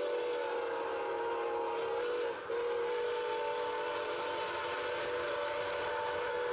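Locomotive whistle blowing a long, steady chord of several notes, broken briefly about two and a half seconds in.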